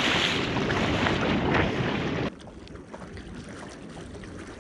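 Wind rushing over the microphone on a moving boat, with water noise beneath. About two seconds in it cuts off abruptly to a much quieter wash of water and boat noise.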